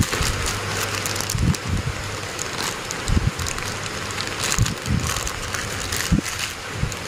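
Clear plastic bag crinkling as hands squeeze and knead soft fishing-bait dough inside it, mixing in a little cooking oil. Dull low thumps come every second or so.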